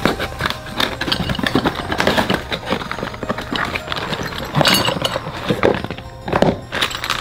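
Handling noises from a small cardboard box of roof-rack fitting parts being opened and a plastic bag of parts pulled out: irregular rustling and clicking, busiest about four and a half and six and a half seconds in. Background music plays throughout.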